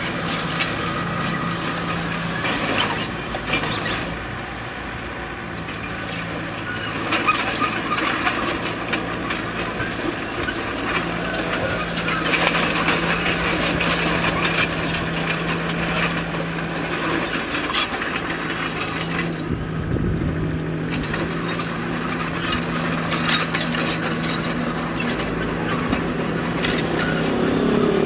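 Bulldozer's diesel engine running steadily under load, with frequent clanks and scraping from the rock being pushed.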